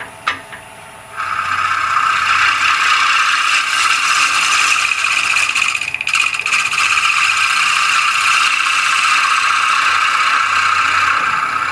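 Walnut spinning on a wood lathe while a tool or abrasive works its surface: a loud, steady scraping hiss that starts about a second in, after a single click, and dips briefly about six seconds in.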